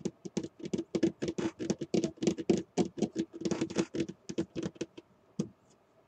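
Rapid, irregular clicking and rattling of small hard objects being rummaged through by hand, about seven to ten clicks a second, stopping a little after five seconds in.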